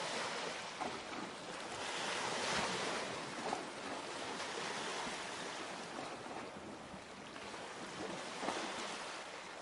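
Steady rushing wind noise on the camcorder microphone, swelling and easing.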